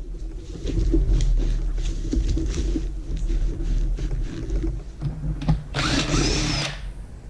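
Handheld power drill at work on the bike's fasteners during disassembly, with scattered clicks and knocks of parts and tools and one loud burst of the drill running, with a whine, about six seconds in.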